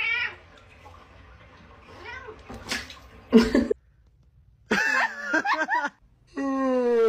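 Cats meowing and yowling: several short, bending meows from different cats in turn, then a long yowl whose pitch slides downward near the end.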